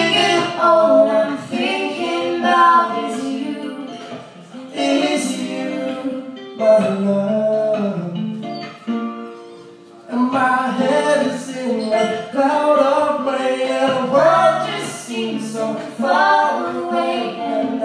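A woman singing a song live to guitar accompaniment, the sung phrases dropping away briefly twice before picking up again.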